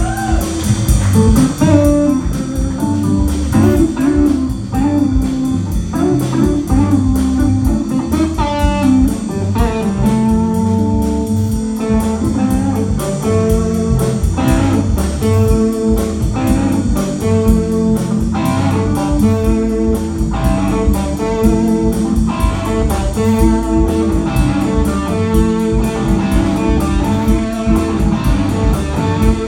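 Live blues-rock band playing: electric guitar lines over bass guitar and a drum kit.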